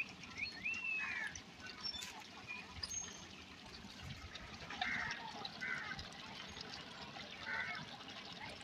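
Large pot of mutton curry simmering over a wood fire, a soft, steady liquid bubbling with small scattered clicks.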